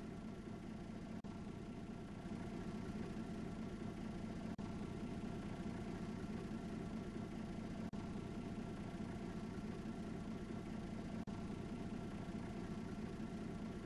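Steady low drone of a bus engine and running gear, heard from inside the bus cabin.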